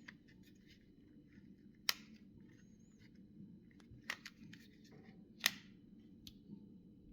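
Small sharp plastic clicks and snaps from a mobile phone's casing and parts being handled and pried apart during disassembly, with three louder clicks about two seconds apart among lighter ticks.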